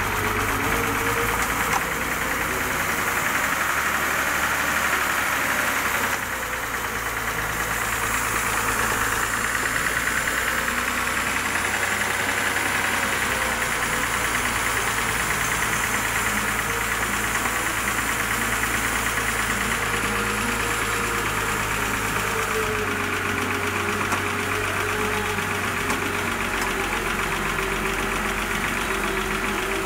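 Daewoo X25D inline-six idling with a fast, steady valve-train ticking, the abnormal noise of a failing rocker arm and hydraulic lifter. A thin whine wavers slowly in pitch above the engine sound.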